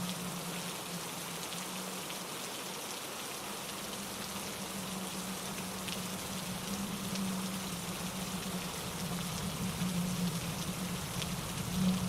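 Steady rain falling through trees, with scattered drops pattering, over the low rush of a mountain stream tumbling over rocks. The water rush swells a little near the end.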